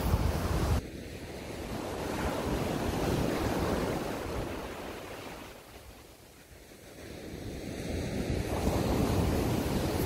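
Surf breaking and washing up the beach. It swells and falls back in a slow wave cycle, dipping about six seconds in before the next wave comes in. Wind buffets the microphone for about the first second, then cuts off suddenly.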